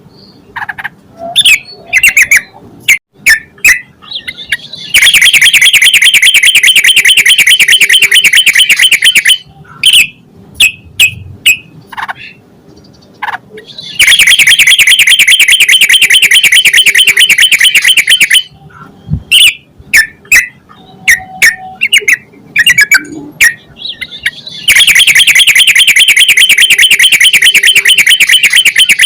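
Yellow-vented bulbul calling: short sharp notes, broken by three long, very loud runs of rapid repeated chattering notes, each lasting about four to five seconds.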